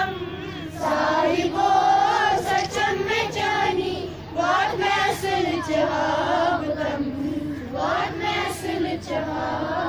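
Schoolchildren singing together in unison, an assembly prayer, with long held notes.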